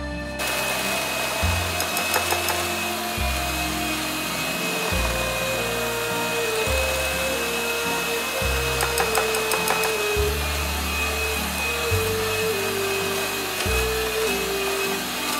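A small electric kitchen appliance motor starts about half a second in and runs steadily with a constant whine, over background music with a slow, stepping bass line.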